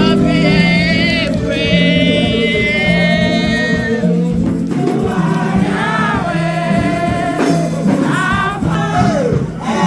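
Gospel music: voices singing over sustained low accompaniment notes that change every second or so.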